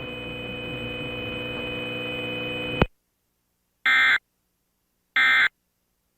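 A steady hum cuts off abruptly with a click just under three seconds in. Then come two short, identical bursts of the Emergency Alert System's warbling digital data tone, about a second and a half apart. These are the EAS end-of-message (EOM) bursts that close a Required Monthly Test.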